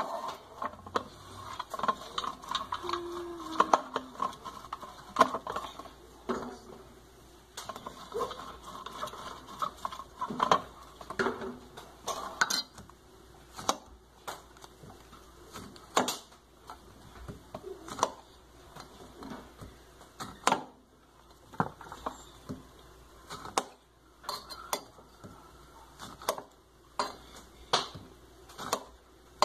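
Kitchen clatter: dishes, pots and utensils being handled, giving irregular clinks and knocks throughout.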